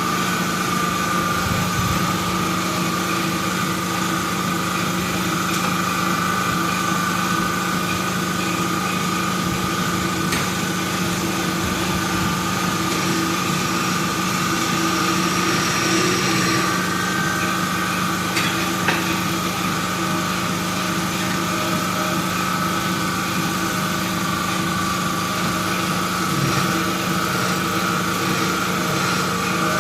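A steady mechanical hum from a running motor, holding one constant drone with no change in pitch.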